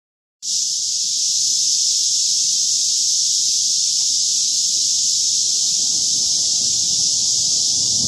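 A dense chorus of cicadas buzzing in a steady, high, unbroken drone. Under it, a faint low rumble of distant thunder builds in the last couple of seconds.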